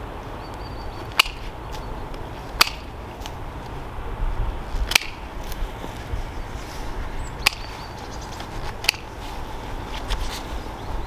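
Hand pruning shears snipping through apple-tree twigs: about five sharp snaps spaced a second or two apart.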